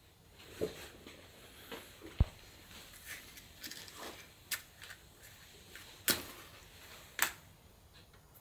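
Scattered small knocks and rustles of hands handling things on a table, then two sharper scraping strikes about a second apart near the end: a match being struck and lighting.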